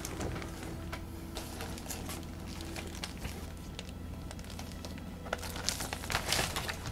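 Crinkling and rustling of a paper sewing pattern package handled in gloved hands, with scattered light clicks, busier and louder near the end.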